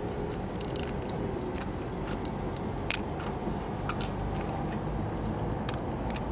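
Sporadic light clicks and clinks, one sharper about three seconds in, over a steady low rumble.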